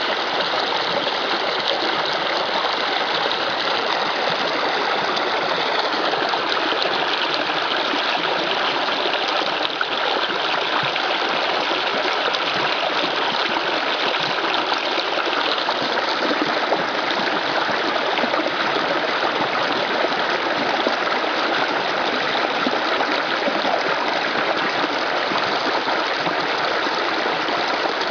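Small creek flowing over its bed, a steady rushing and trickling of water.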